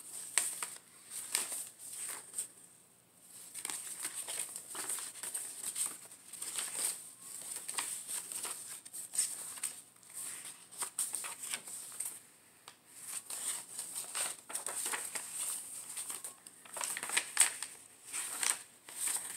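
Paper and card pages of a handmade junk journal being turned and handled: irregular rustling and crinkling, loudest near the end.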